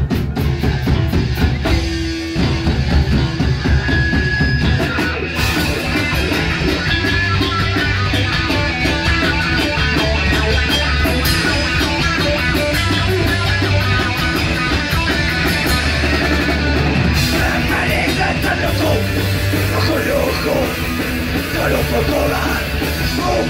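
Punk band playing live and loud: electric guitars, bass guitar and drum kit, an instrumental stretch before the vocals come in.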